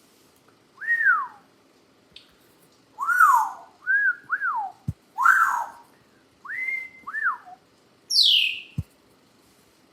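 African grey parrot whistling: about seven short notes that each rise and fall, then a higher whistle that sweeps downward near the end.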